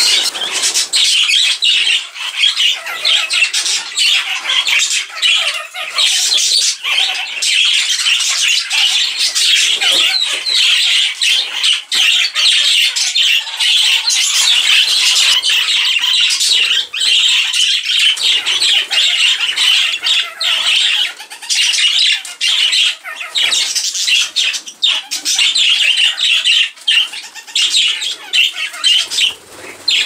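A flock of budgerigars chattering, warbling and squawking, dense and unbroken, with short sharp clicks and wing flaps now and then.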